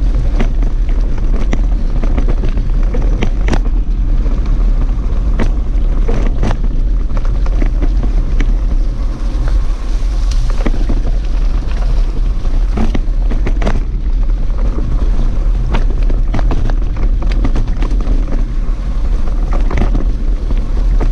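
Wind buffeting the microphone of a camera on a moving mountain bike, a steady low rumble, with frequent sharp clicks and knocks as the bike rattles over the bumpy trail.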